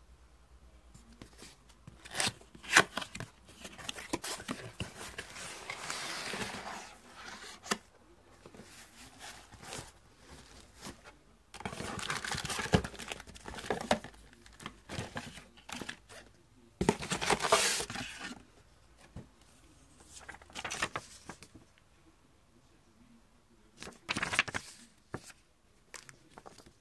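Packaging being handled during an unboxing: a cardboard box, a soft case and paper inserts rustling and crinkling in about six bursts, with sharp taps and clicks between.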